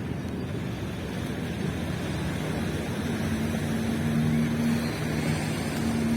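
A boat motor running steadily and growing louder, its low hum coming in about halfway through, over a continuous wash of surf.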